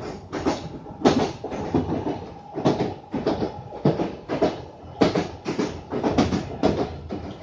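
London Underground 1995 Stock train running along the track, heard from inside the carriage: a low rumble broken by irregular sharp clacks and rattles, two or three a second, as the wheels pass over the rail and the car body shakes.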